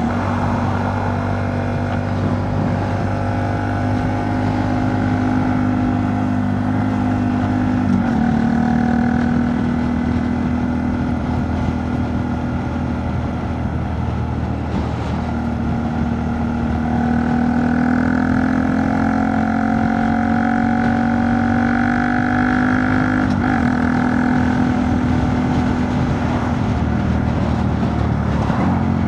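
Honda Monkey 125's single-cylinder four-stroke engine running through a Scorpion titanium exhaust with the baffle in, heard from the bike while riding. The engine note holds steady, breaks briefly about eight and again about twenty-three seconds in, and climbs steadily in between. In the rider's words it is still fairly loud.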